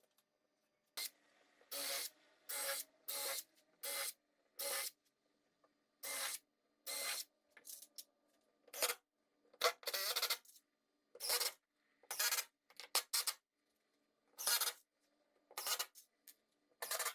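A hand tool scraping or rasping on wood in a series of short separate strokes, with brief pauses between them.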